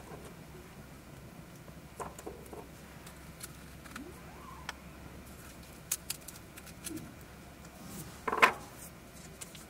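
Scattered light clicks and ticks over a faint steady hum, with a louder knock a little past eight seconds in.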